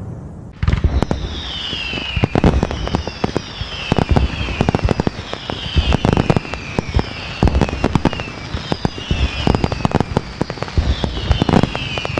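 Fireworks going off: a dense string of sharp bangs and crackles, with falling whistles repeating about every second and a half. It starts suddenly about half a second in.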